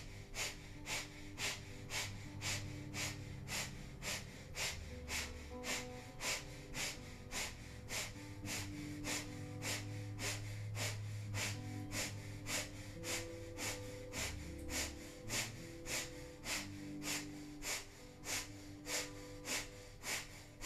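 Breath of fire: rapid, sharp exhalations through the nose, about two a second, pumped steadily. Background music with long held notes plays under it.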